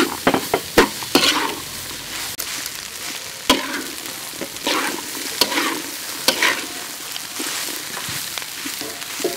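Metal spatula stir-frying cooked rice in a hot wok: a steady sizzle with frequent irregular scrapes and clacks of the spatula against the pan.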